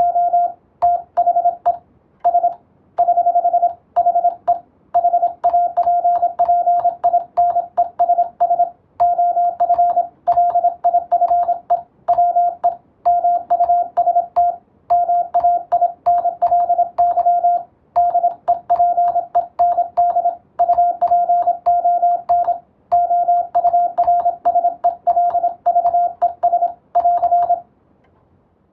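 Morse code (CW) practice tone, a single steady pitch keyed into fast dots and dashes in even groups with short gaps between. It stops about 27 seconds in.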